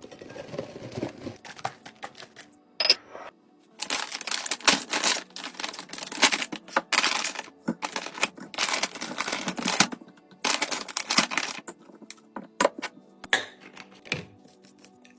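Small hard items clattering as they are poured into containers, in several pours of about a second each, with clicks and taps of handling between them. Faint background music runs underneath.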